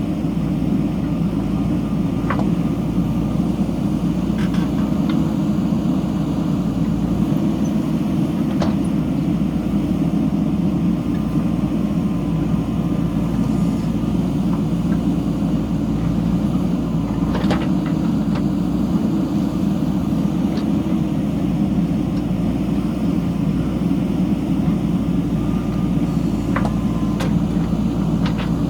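JCB backhoe loader's diesel engine running steadily, with a few sharp knocks scattered through.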